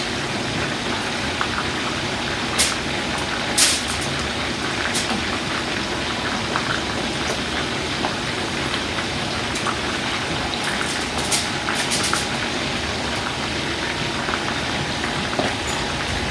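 Chicken thighs frying in oil in a skillet, a steady sizzle, with a few sharp clicks of bowls and utensils being handled.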